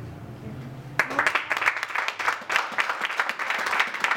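Audience applauding at the end of a spoken-word poem, starting suddenly about a second in.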